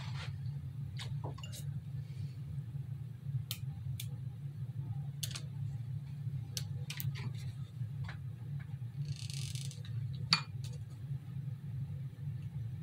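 Scattered light clicks and taps from craft materials being handled at a table, over a steady low hum. A brief hiss comes about nine seconds in, and a sharper click follows just after it.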